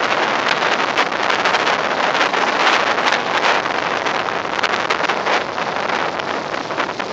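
Steady rushing noise of tropical-storm wind, with gusts buffeting the microphone in short crackles.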